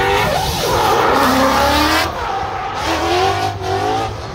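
Drift car's engine revving up and down while its tyres squeal and skid through a slide, the tyre squeal strongest from about half a second to two seconds in.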